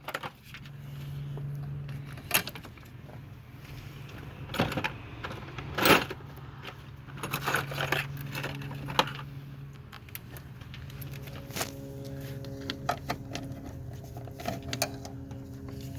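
Metal tools and loose bolts clinking and rattling at irregular intervals during engine work, over a steady low hum.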